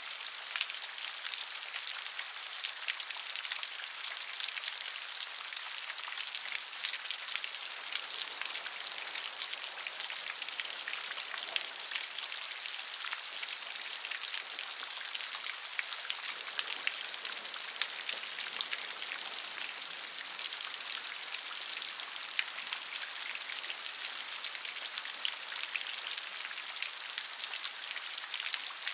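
Steady rain falling, a constant hiss with many fine individual drop ticks and no thunder.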